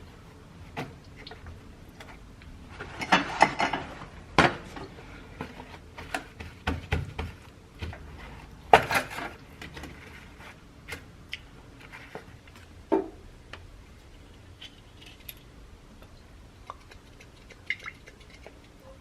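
Kitchen work with dishes and utensils: scattered clinks and knocks of crockery and cutlery being handled, with two busier spells of clattering, one about three seconds in and one about nine seconds in.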